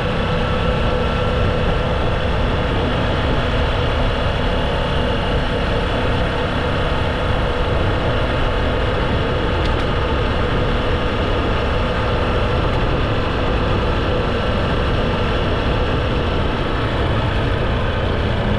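A paramotor's engine and propeller running steadily in flight, a continuous drone with wind rushing over the microphone.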